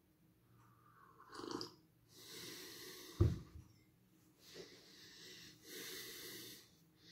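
A person breathing heavily, with several long breathy exhales and wheezes through the mouth, reacting to the burn of extra-spicy ramen. A single sharp thump a little after three seconds in.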